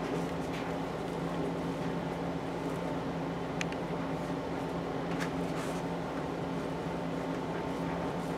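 A fan or small motor humming steadily, with two faint clicks in the middle.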